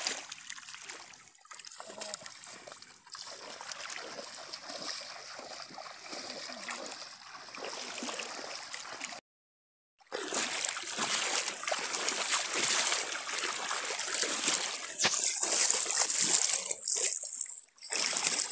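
Water sloshing and splashing around a person wading through a shallow river, with a steady hiss. The sound breaks off for about a second near the middle and comes back louder.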